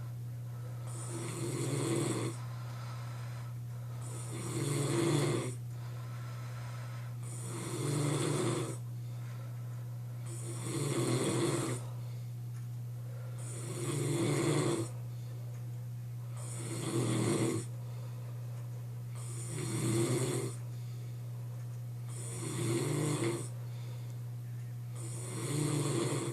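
A man snoring heavily in his sleep, one loud snore about every three seconds, in an even rhythm. A steady low hum runs underneath.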